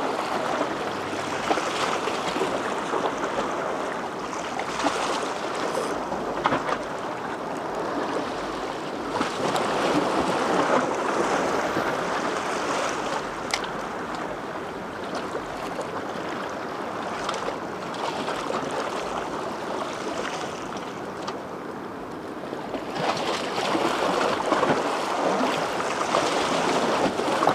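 Small ocean waves washing against the shore in a steady wash that swells louder twice, about ten seconds in and again near the end.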